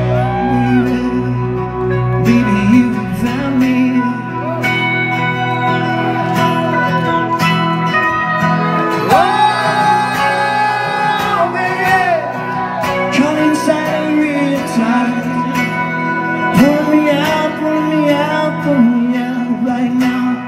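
Live rock band playing: a male singer holding long sung notes over strummed acoustic guitar, electric guitar and drums.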